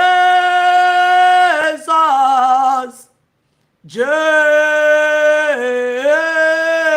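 A single unaccompanied voice slowly singing "Jesus" in long held notes that step down in pitch, twice, with a short pause about three seconds in.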